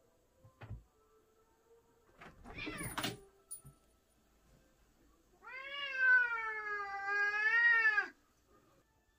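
A cat gives one long wavering yowl of nearly three seconds while squaring off with another cat. Before it come a soft thump and a brief scuffle.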